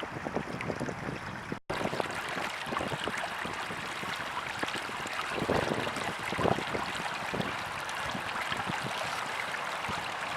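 Spring snowmelt stream running, a steady rush of water with small irregular splashes.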